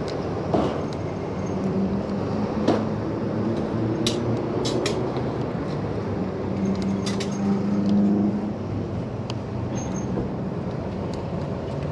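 Steady road noise while riding an electric bike, with a low engine-like hum that swells about seven to eight seconds in. A few sharp clicks come around four to five seconds in.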